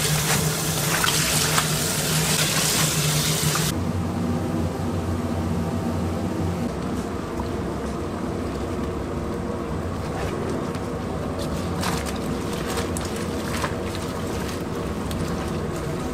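Tap water pouring hard onto cut green onions in a basin for the first few seconds, then it cuts to a steady low rumble. A few short rustles and clicks come as handfuls of green onions are dropped into a pot of soup.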